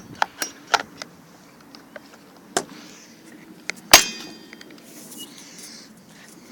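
Scattered sharp clicks and knocks of hard objects being handled, with one loud metallic clang about four seconds in that rings briefly.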